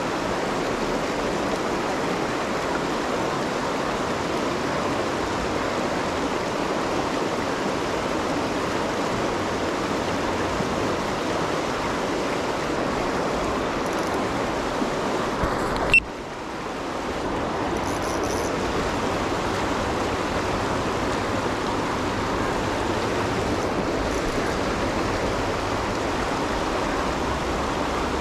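River rapids flowing over rocks: a steady wash of water. A single sharp click sounds about halfway through.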